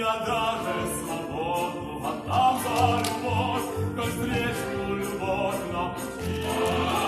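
Voices singing a Gypsy-style song with musical accompaniment, holding and bending long notes.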